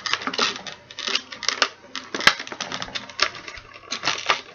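Hard plastic toy and its packaging being handled: irregular small clicks and crackles, with one sharp click a little over two seconds in.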